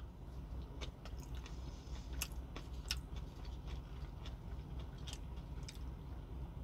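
A person chewing soft Korean-style marinated eggplant salad with the mouth open, giving scattered wet clicks and smacks, over a steady low hum.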